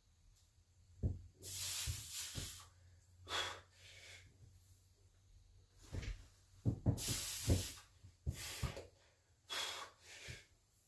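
A lifter breathing hard during a set, with a run of forceful hissing exhalations in short bursts and a few low thumps among them.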